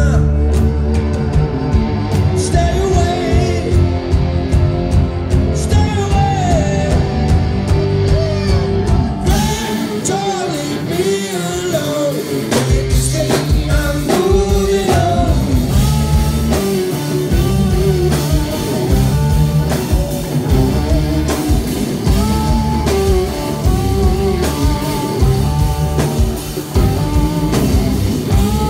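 Live rock band playing: bass and drum kit under a lead line that bends up and down in pitch, with cymbals filling in from about nine seconds in.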